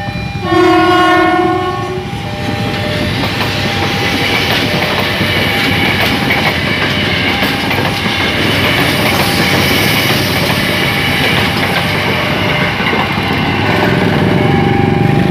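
Electric multiple-unit commuter train sounding its horn once for about a second as it approaches, then passing close by with a loud, building rush of wheel and rail noise and the clickety-clack of wheels over the rail joints.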